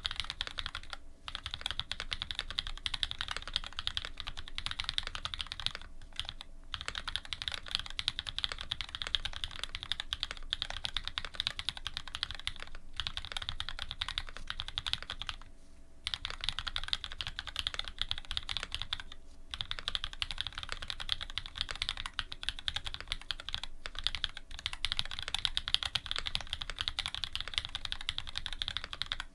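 Fast, continuous typing on a custom mechanical keyboard with lubed Cherry Black linear switches fitted with Cream stems, an aluminium plate and GMK keycaps. There are short pauses every few seconds.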